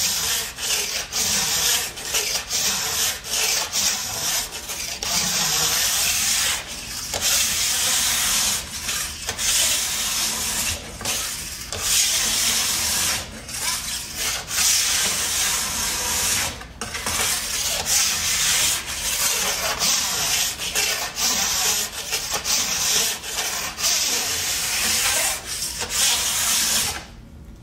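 Repeated rubbing, scraping strokes of a hand tuning tool worked back and forth along a ski clamped in a vise, with brief breaks between strokes. The sound stops just before the end.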